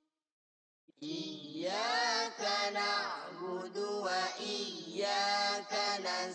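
After about a second of silence, a boy's voice begins chanting a Qur'an recitation (tilawah) through a microphone: a melodic line of long, wavering, ornamented notes with short breath pauses.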